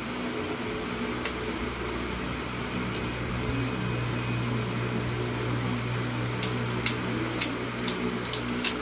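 Steady mechanical hum, like a room fan, all through. Near the end comes a quick run of sharp clicks and taps as the metal telescoping selfie-stick rod is handled.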